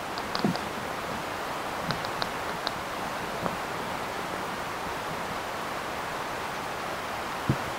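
Steady hiss picked up by a microphone lowered down a borehole. A few faint high ticks come in the first three seconds, and short dull knocks come near the start and again near the end. The recordists take such sounds for tunnel work underground.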